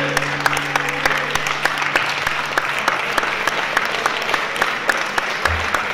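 Crowd applause, many hands clapping steadily. A low steady hum sits under the clapping and fades out about two seconds in.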